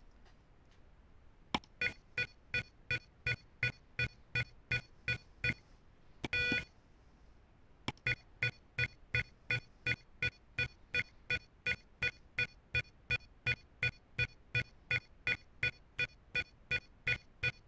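Electronic beeps from the Arduino Mega LED-panel clock's alarm buzzer. Short beeps about three a second mark the alarm setting stepping up one value per beep as the minutes count up, with one long beep about six seconds in.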